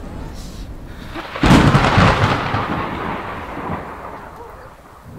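A thunderclap comes about a second and a half in. It is a sudden crack that rumbles and fades over the next few seconds, over steady rain.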